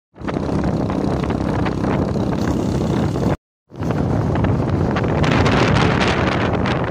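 Wind buffeting the microphone over the low rumble of a moving vehicle's engine and road noise. The sound cuts out completely for a moment about three and a half seconds in, then resumes.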